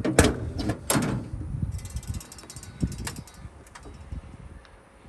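Hood of a 1968 Pontiac Firebird being unlatched and raised: sharp metal clunks at the start and about a second in, a run of light rattling clicks around two seconds, and another knock near three seconds.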